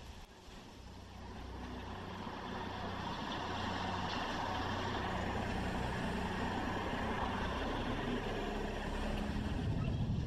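The wheeled rig carrying the camera rolls along a gravel lane: a steady rolling rumble with a low hum. It grows louder over the first few seconds as it picks up speed, then holds steady.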